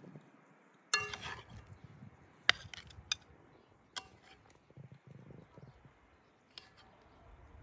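Metal spoon clinking against a metal cooking pan and a china plate while sauce and stuffed vegetables are served: a handful of sharp clinks, the first one about a second in ringing briefly.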